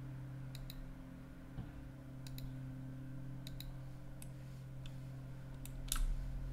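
Computer mouse clicking: a string of sharp clicks, several in quick press-and-release pairs, the loudest near the end, over a steady low electrical hum.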